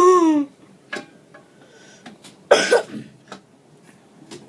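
A single short cough about two and a half seconds in, with a few faint clicks around it.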